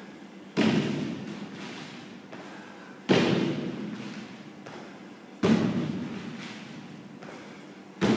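Box jumps: feet landing on a wooden plyo box and dropping back to the gym floor, four heavy thuds about every two and a half seconds, each echoing in the large hall.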